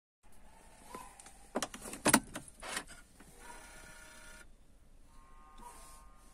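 A quick run of sharp clicks and knocks inside a car cabin, the loudest about two seconds in. Faint steady electronic tones follow, twice.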